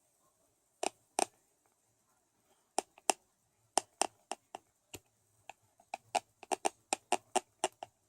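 Teeth of a person with bruxism clicking and knocking together, tooth on tooth: sharp single clicks, sparse at first, then quickening to about three or four a second in the second half.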